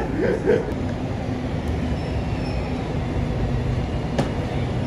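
Steady low rumble of background noise, with a single sharp smack of shoes landing on concrete about four seconds in.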